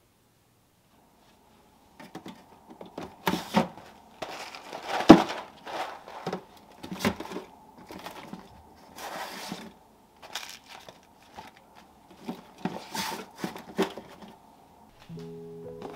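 Silicone food storage bags and plastic containers being shuffled and slotted into an open freezer drawer: rustling, scraping and knocks, with one sharper knock about five seconds in, over a faint steady hum. Music comes in near the end.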